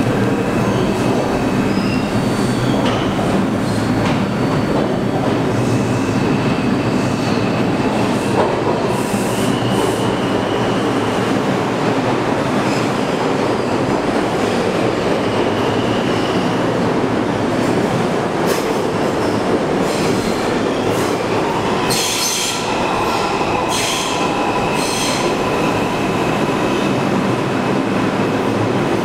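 New York City Subway train running along the platform, a loud steady rumble with high wheel squeal. A run of sharp clacks from the wheels over the rails comes about two-thirds of the way in.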